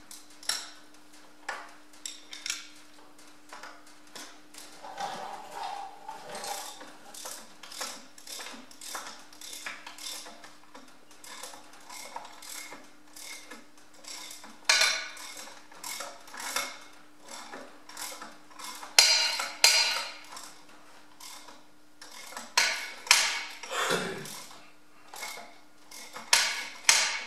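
Hand ratchet spanner clicking in runs of quick clicks as bolts are wound out. A few louder clusters of metallic clicks and knocks come in the second half.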